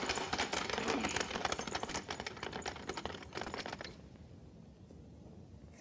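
Clattering of a horse-drawn cart, hooves and wheels, going away and fading over about four seconds before it cuts off.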